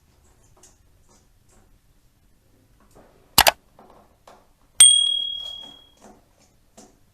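Faint scraping and clicking of small-screw work on a laptop's bottom cover, a sharp double knock about three and a half seconds in, then a sharp metallic clink that rings and fades over about a second.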